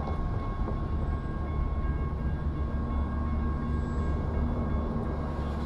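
Freight train of autorack cars rolling past at close range: a steady low rumble of wheels on rails, with a few thin steady high tones over it.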